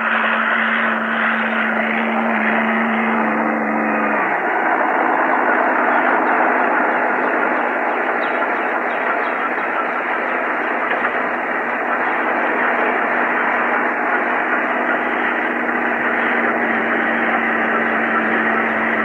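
Small helicopter's engine and rotor running steadily while it sits on the ground: a steady, even noise with a constant hum under it.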